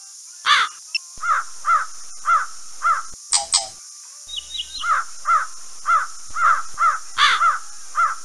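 A bird giving a run of short, harsh repeated calls, about two a second, with a pause near the middle, over a steady high hiss.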